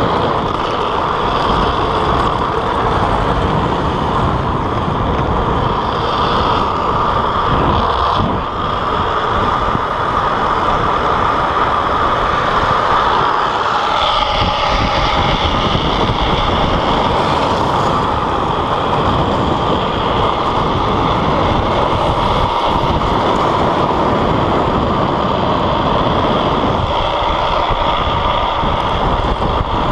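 Wind buffeting the microphone, mixed with the hard plastic rear wheels of drift trikes scraping and sliding over asphalt at speed downhill. The noise is loud and steady throughout.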